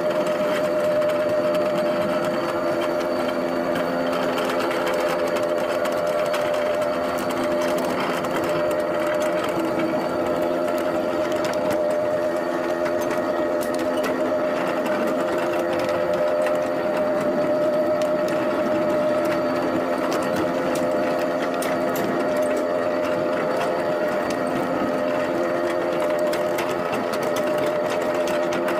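Homemade ride-on miniature train running along its track, its drive giving a steady multi-tone whine, with scattered light clicks from the wheels on the rails.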